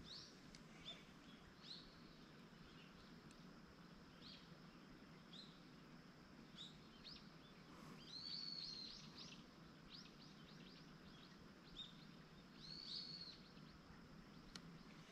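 Small birds chirping: scattered short high chirps throughout, with two louder, longer arched calls about eight and thirteen seconds in, over a faint steady hiss.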